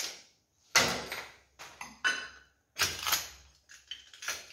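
Irregular clinks and clatters of hard objects, about four of them spread over a few seconds, each fading quickly.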